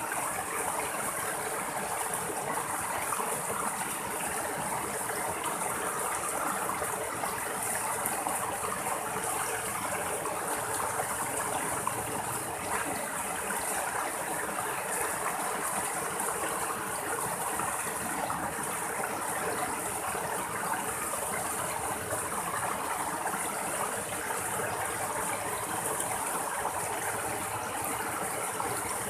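Small rocky stream splashing and gurgling over low cascades into shallow pools, a steady, unbroken rush of water.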